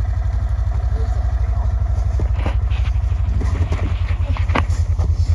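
Vehicle engine running with a steady low pulsing, growing louder about three and a half seconds in.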